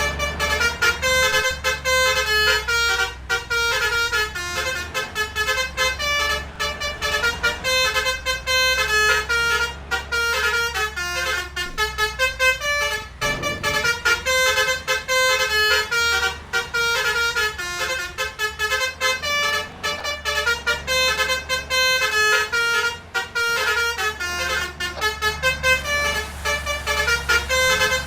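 Multi-tone 'telolet' basuri bus horn playing a continuous melody of quick toots, its notes changing several times a second, over a steady low rumble.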